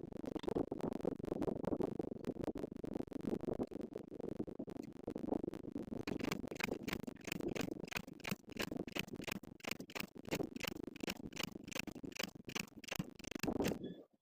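Heavy construction machinery running at a pile-driving site: a dense, rough rumble. About halfway through, a fast, regular clatter of sharp clicks joins it, about four a second.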